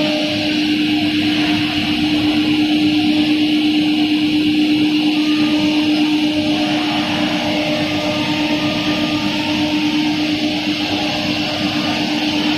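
iGoldenCNC ATC CNC router spindle cutting grooves in a wooden board: a steady tone held over a steady noise from the cut.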